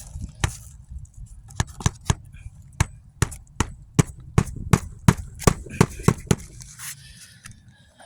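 Hammer strikes driving roofing nails to fasten a replacement shingle on an architectural-shingle roof: about eighteen sharp blows in quick uneven succession, stopping a little over six seconds in.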